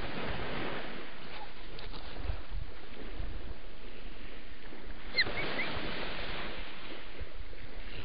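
Steady wind and surf noise on a beach. About five seconds in come a few brief high chirps.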